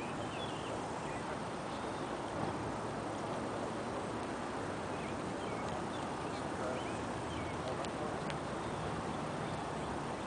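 Steady wind noise, with faint short bird chirps scattered throughout.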